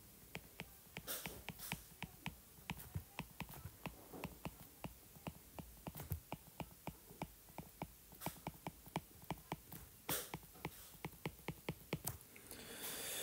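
Stylus tip tapping and ticking on a tablet's glass screen during handwriting: faint, quick, irregular clicks, several a second, with a few louder ones.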